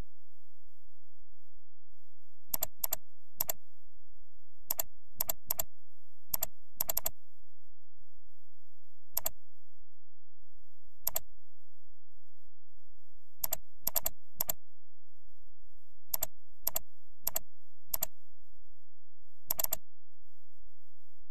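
Computer mouse and keyboard clicks, scattered and irregular, some in quick pairs, about twenty in all.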